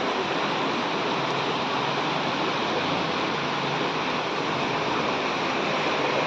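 Floodwater rushing steadily, an even, unbroken noise of fast-flowing water.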